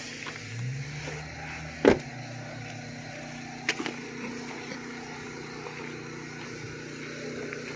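A motor vehicle engine running steadily, rising briefly in pitch near the start. A single loud knock comes about two seconds in, and a few sharp clicks near the middle.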